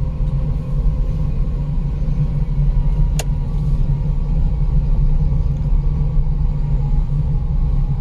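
Steady low rumble of a car's engine and tyres on the road, heard from inside the cabin while driving. A single sharp click about three seconds in.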